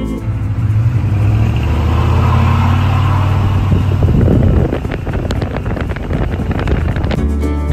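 1982 Chevy C20's 6.2-litre V8 diesel running as the truck drives, a steady low drone with road and wind noise over it. About four seconds in the sound turns choppier, with a quick run of short knocks.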